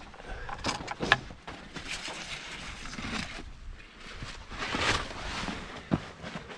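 Hiker's footsteps scuffing and crunching on a rocky, sandy trail, with a few sharp knocks and swells of wind noise on the microphone.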